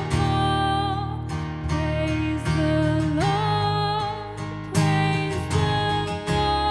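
Music led by a strummed acoustic guitar, with a sustained melody line that steps up in pitch about three seconds in.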